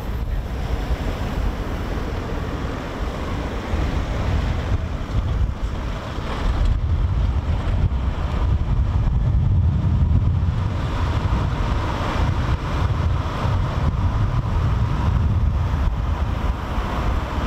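Road and wind noise of a car driving, heard from inside the cabin: a steady low rumble with a rushing hiss over it.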